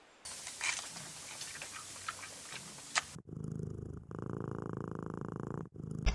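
A domestic cat purring close up, a low fine rattle in two long breaths, starting about halfway through. Before it, about three seconds of hissy outdoor background with scattered small clicks and snaps.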